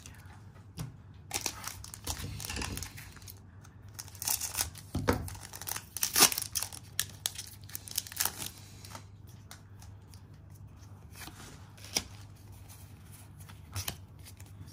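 Foil Pokémon booster pack wrapper being torn open by hand, in several short rips spread over a few seconds. Near the end there is a single sharp tap.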